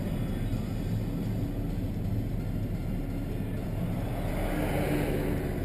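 Engine and road noise of a vehicle heard from inside its cabin while driving slowly in traffic: a steady low rumble.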